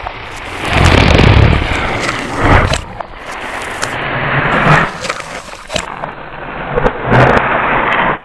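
Monster or demon growl sound effect: a rough, rasping growl that swells and fades in several surges.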